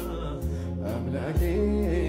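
Ethiopian Protestant gospel song (mezmur): a man singing a slow, bending melody over sustained low bass notes that change about half a second in and again near the end.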